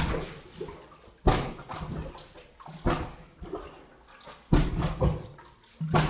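Toilet plunger being pumped hard in a toilet bowl, water sloshing and splashing with each stroke. There are about five strokes, roughly one every second and a half, each sudden and then dying away.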